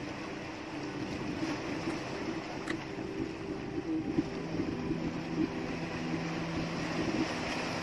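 Small boat engine running steadily at low speed, a low, even hum.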